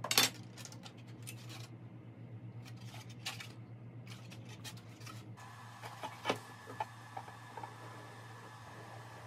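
Light clicks and taps of hard plastic and carbon fiber being handled: a 3D-printed PLA wing section and carbon fiber rods set down on a cutting mat, loudest just at the start. A low steady hum runs underneath, and a faint hiss comes up about five seconds in.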